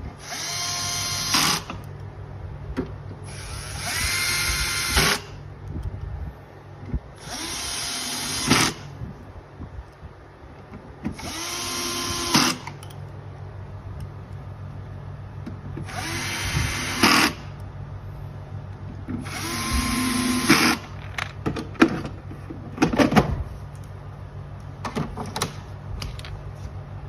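Cordless power screwdriver driving in six screws one after another, each a run of about a second, a few seconds apart. A few light clicks and knocks of handling follow near the end.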